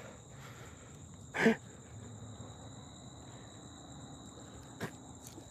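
Crickets trilling steadily at night, with a short louder sound about a second and a half in and a faint click near the end.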